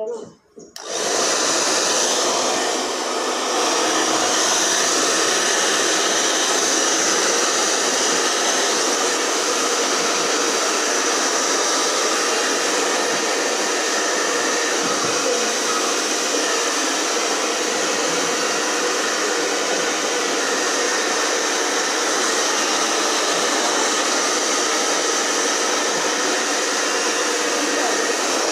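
Hair dryer blowing steadily, switched on about a second in, drying a dog's damp coat.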